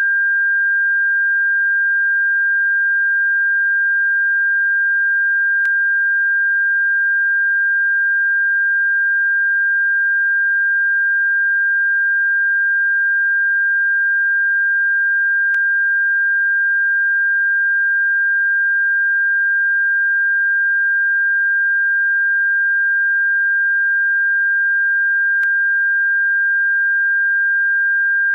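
Electronically generated bird-repellent tone: one steady, unwavering high-pitched pure tone, with a faint click about every ten seconds.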